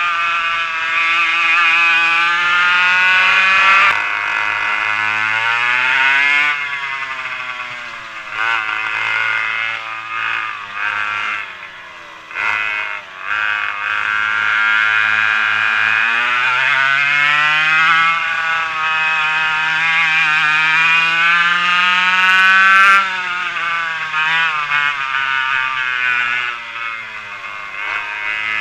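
A pair of West Bend 820 two-stroke kart engines under racing load, the revs climbing on the straights and falling away into the corners. Partway through they are eased on and off in short choppy bursts, then a long climb in the second half breaks off sharply.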